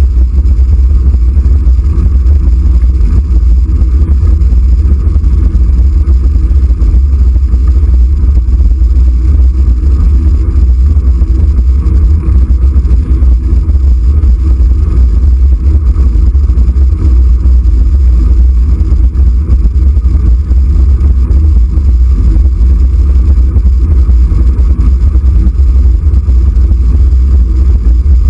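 Steady, heavy low rumble of wind buffeting the microphone of a camera moving along a road, mixed with road noise.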